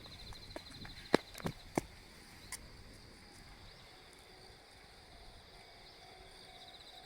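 Quiet outdoor ambience with insects chirping in a fast, high trill that fades after about a second and comes back near the end. A few sharp clicks or knocks fall in the first couple of seconds, the loudest about a second in.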